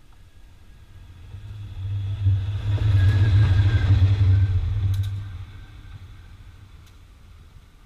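Diesel locomotive passing close by at speed: its engine drone and rolling noise swell to a peak about three to four seconds in, then fade as it moves away, with a couple of sharp clicks as it goes.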